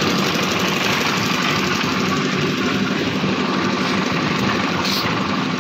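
Concrete mixer's engine running steadily, an even mechanical rumble.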